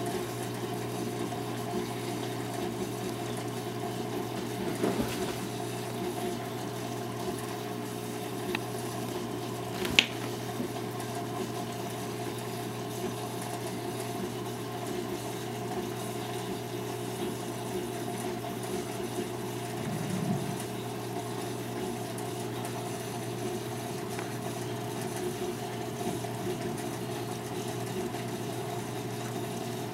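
Saltwater reef aquarium's pump humming steadily with water circulating and trickling, and one sharp click about ten seconds in.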